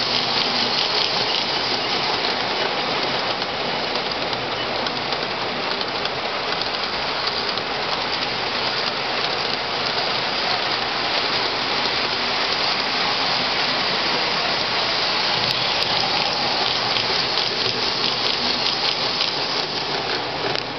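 Steady rolling noise of O-gauge three-rail model trains, metal wheels running on the track as a passenger train and then a freight train pass.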